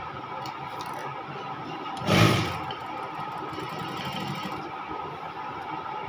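Sewing machine running steadily while stitching a shirt cuff onto a sleeve, with a few faint clicks in the first second. About two seconds in there is a brief loud rush of noise.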